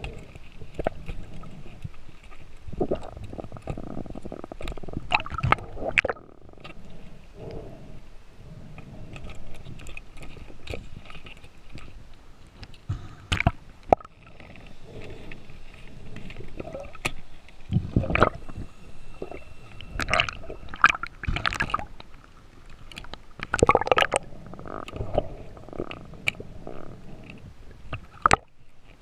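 Underwater noise picked up by a camera in its housing during a freedive: water gurgling and sloshing past, in uneven swells, with scattered sharp clicks and knocks.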